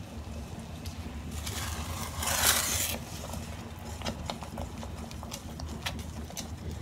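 Silicone spatula stirring thick chocolate mousse batter in a non-stick pot, with light, irregular clicks and scrapes against the pot's sides and bottom. A brief louder rush of noise comes about two seconds in, over a steady low hum.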